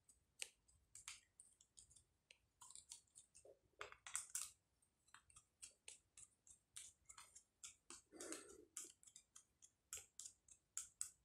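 Faint, irregular clicks and light scrapes of a plastic electrical plug being handled and screwed together by hand, with a few louder clicks about four seconds in.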